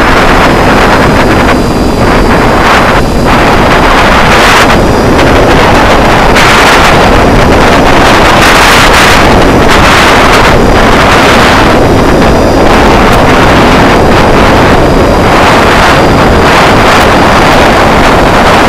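Loud wind rushing over the microphone of a camera in flight, surging every second or two, with a faint steady high tone underneath.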